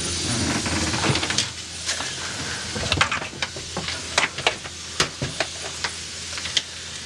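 Bundle of old boat wiring being handled and tugged, with irregular light clicks and rattles over a steady hiss.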